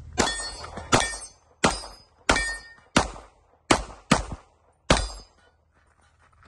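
Handgun fired eight times in quick succession, shots about two-thirds of a second apart with one quicker pair near the middle, each sharp crack trailing off briefly.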